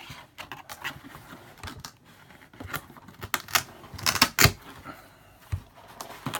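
Handling noise from a model-aircraft packaging box being worked open by hand: irregular clicks, taps and rubbing, with a few sharper knocks about four seconds in.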